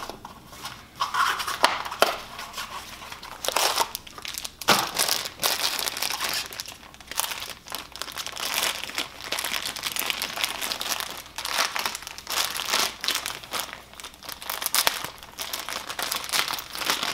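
Plastic packaging crinkling and rustling in gloved hands as an engine main bearing shell is unwrapped and handled, with scattered small clicks and taps.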